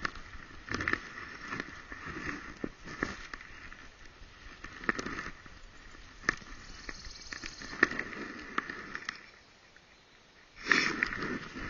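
A dog with a camera strapped to it rustling and sniffing through low forest undergrowth, with irregular clicks and scrapes of leaves and twigs against the camera. The dog goes nearly still for a moment near the end, then moves off with louder rustling.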